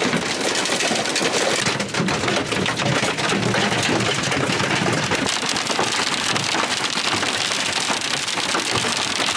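Hail and rain pelting the van's metal roof and windshield, heard from inside the van: a loud, dense clatter of countless small hits over a steady hiss of rain.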